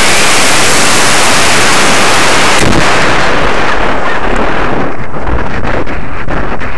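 Model rocket motor roaring, heard from a camera riding on the rocket. About two and a half seconds in, the roar drops away as the motor burns out, and loud rushing wind with fluttering buffets takes over as the rocket coasts upward.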